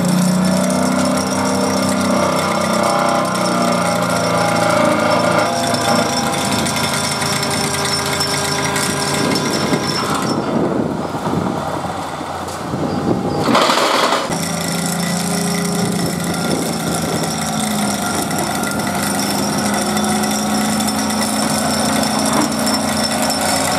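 Excavator-mounted hydraulic pile driver working a steel Larssen sheet pile into the ground: a loud, steady mechanical drone with a low hum that wavers in pitch. A little past halfway it eases off for a few seconds, then comes back with a short loud burst.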